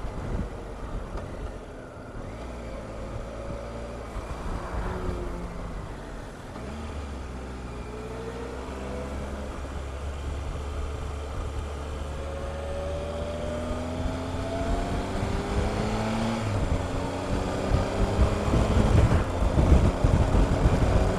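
Triumph Explorer motorcycle's three-cylinder engine heard from the rider's seat, its revs falling and rising as it slows and pulls away. From about halfway the revs climb steadily, with a gear change, as the bike picks up speed. Wind rush grows loud near the end.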